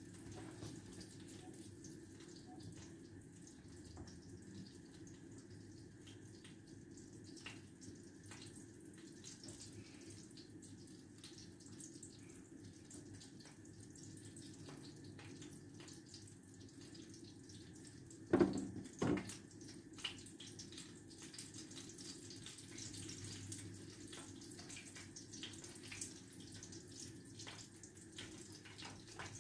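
Oil sizzling and crackling faintly as breaded chicken schnitzels shallow-fry in a pan, with two louder knocks a little over halfway through.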